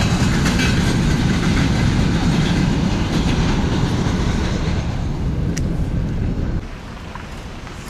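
Freight train of covered hopper wagons rolling past, a loud rumble and clatter of wheels on the rails. The noise fades as the last wagons move away and drops off suddenly about two-thirds of the way in.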